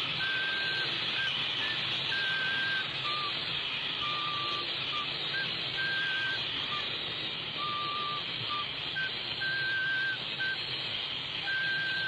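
A simple melody of short, clear notes on a flute, moving between a few pitches, over the steady hiss of an old film soundtrack.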